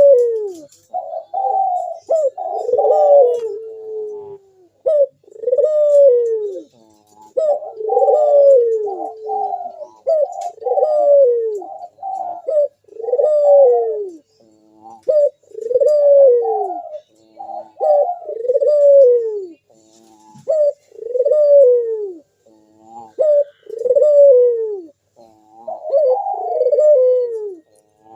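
Local puter dove calling (manggung): a long run of low, deep coos, each phrase rising briefly and then sliding down in pitch, repeated every one to three seconds.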